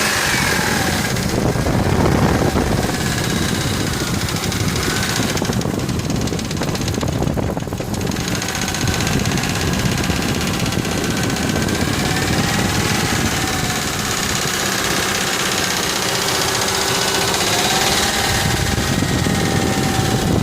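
Ford F-150 4.6 L two-valve V8 running with a steady, rapid knocking rattle. It sounds like a lifter or lash-adjuster rattle, but the owner found the valvetrain quiet and suspects worn rod bearings.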